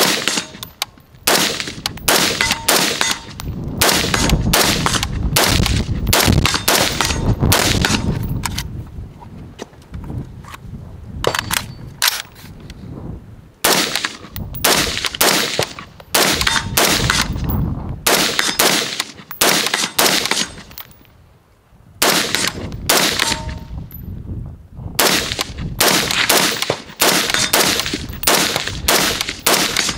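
H&R M16A1 rifle (5.56 mm) firing quick strings of single shots, about two to three a second, each with a short ringing tail. There is a longer lull between strings a little past the middle.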